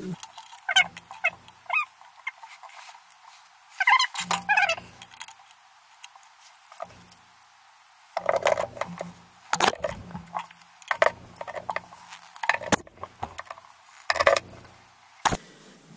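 Irregular metallic clicks, scrapes and rattles of a chrome angle-stop shutoff valve being threaded onto its pipe fitting by hand and then tightened with pliers, busier in the second half.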